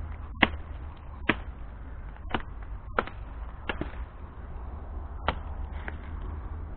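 Footsteps crunching through dry leaf litter and twigs: sharp crackles roughly once a second, over a steady low rumble.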